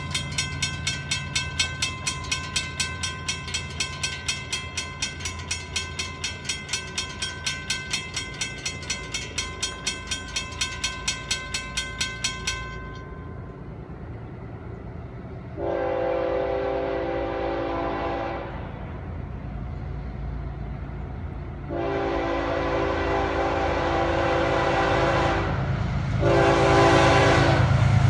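Railroad crossing warning bell dinging rapidly, about three strokes a second, then stopping about 13 s in. The approaching Florida East Coast Railway diesel freight locomotive then sounds its air horn in the grade-crossing pattern: long, long, short, and a final long blast starting at the very end, over a low engine rumble that grows louder as the train nears.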